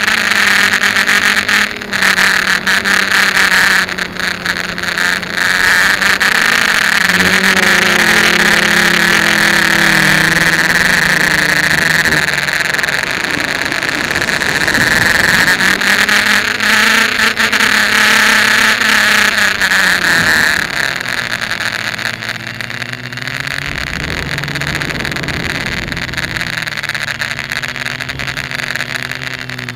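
F450 quadcopter's brushless motors and propellers in flight, heard from its onboard camera: a loud buzzing whine whose pitch rises and falls as the throttle changes, over a steady rushing hiss of prop wash and air. It eases off and gets quieter about two thirds of the way through.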